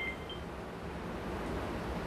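The tail of a phone's WhatsApp message notification tone dies away in the first half-second. After that there is only a steady low background hiss and hum.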